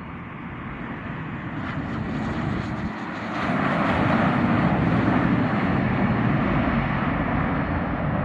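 Bombardier Global 6000 business jet landing, the noise of its two Rolls-Royce BR710 turbofan engines building. It grows much louder about three seconds in and stays loud as the jet passes.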